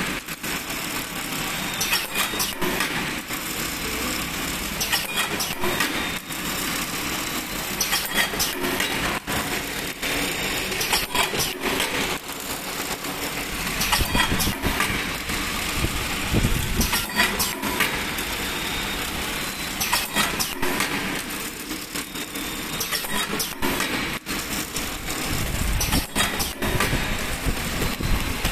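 Full-automatic straw packing machine running: a steady mechanical clatter with many short, irregular clicks and knocks from its moving parts.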